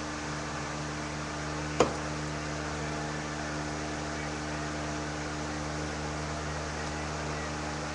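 Steady electrical hum and hiss, with a single sharp click just under two seconds in.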